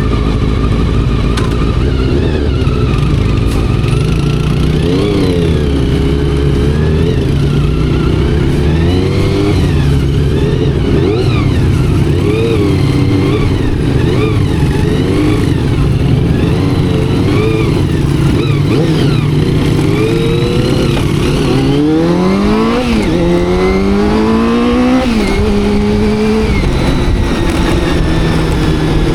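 Honda CBR400RR's carbureted inline-four running on the move, its revs rising and falling through the throttle. Near the end it pulls hard through two quick upshifts, each one a rising pitch that drops suddenly, then settles at a steady pitch.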